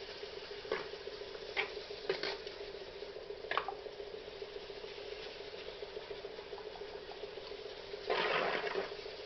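Cutting board oil being wiped onto a turned black walnut bowl: a few short rubbing swishes, then a longer, louder one near the end, over a steady hum.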